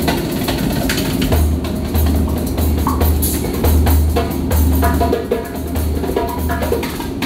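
Hand drum played with bare hands in a steady rhythm: deep bass strokes and sharper slaps on the drumhead.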